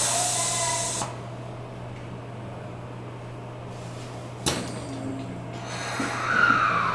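Inside a Tokyo Metro 07 series subway car standing at a station: a hiss of air fades out about a second in over the low steady hum of the car's equipment. About four and a half seconds in comes a single sharp knock of the sliding doors shutting.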